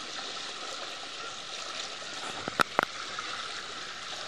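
Steady rush and slosh of fast-flowing floodwater being waded through, with two sharp clicks in quick succession a little past halfway.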